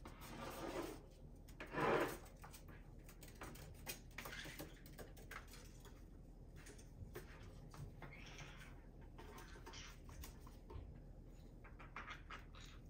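Green-cheeked conures play-wrestling on a hard countertop: faint scattered taps and scratches of feet and beaks, with two short, louder scuffles in the first couple of seconds and a smaller one about eight seconds in.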